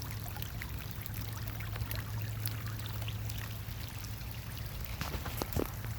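Runoff water flowing across a flooded yard, a steady rush with many small splashes and drips. A steady low hum runs beneath it.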